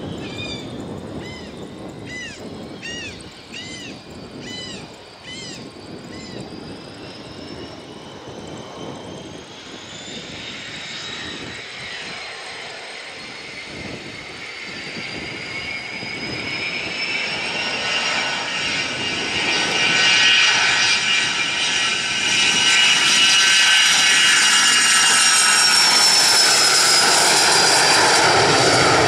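Learjet 45XR's two rear-mounted Honeywell TFE731 turbofans spooling up for takeoff: a whine that climbs steadily in pitch and grows louder, settling into a loud, steady full-power rush over the last several seconds as the jet rolls down the runway.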